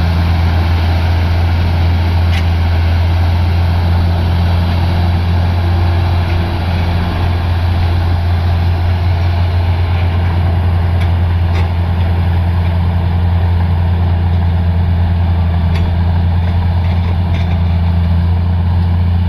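Bulldozer's diesel engine running steadily with a deep, even hum, and a few faint clicks now and then.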